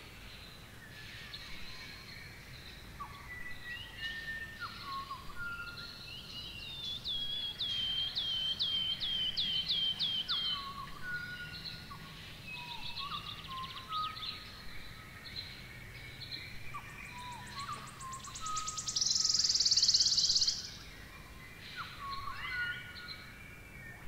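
Small birds chirping and whistling, with many short varied calls and a fast run of repeated notes near the middle. A loud buzzing hiss lasts a second or two near the end.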